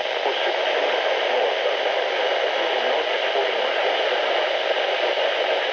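Radio static: a steady, even hiss from a radio receiver picking up no programme.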